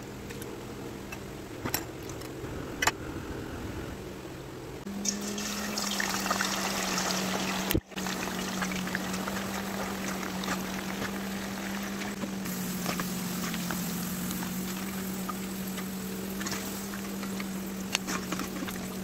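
Potato slices deep-frying in hot oil: a dense, crackling sizzle that starts about five seconds in, after a quieter stretch of slices being stirred by hand in a bowl of water with a couple of clicks. A steady hum runs underneath.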